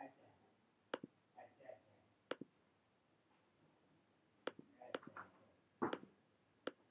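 Faint, scattered computer mouse clicks, about six of them, spread over near silence.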